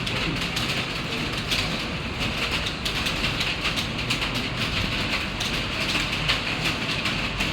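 Fast typing on a computer keyboard: a dense, uneven patter of key clicks.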